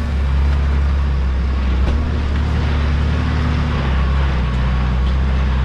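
Diesel 4x4 engine running steadily at low revs while the vehicle crawls along a dirt track, with tyre and wind noise over it.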